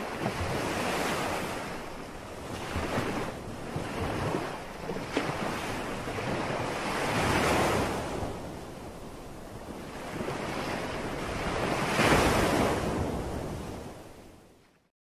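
Ocean surf: waves washing in and breaking on a beach, swelling loudest about halfway through and again near the end, then fading out.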